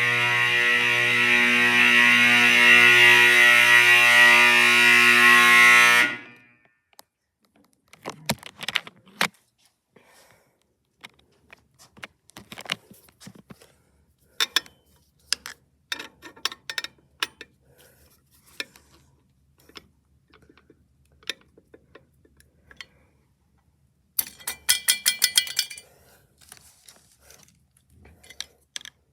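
Edwards Adaptahorn fire alarm horn sounding a loud, steady buzzing tone that cuts off suddenly about six seconds in. After that come scattered clicks and knocks, and near the end a fire alarm bell rings in a short rapid burst.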